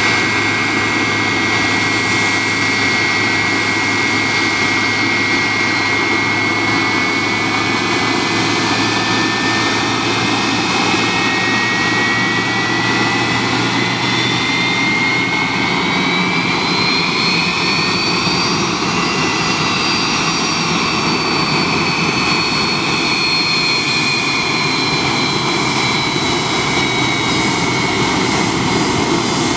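MD-82's rear-mounted Pratt & Whitney JT8D turbofan engines spooling and running loudly, a steady roar under a whine. The whine slowly climbs in pitch through the first two-thirds, then eases back a little. A low hum underneath drops away about halfway through.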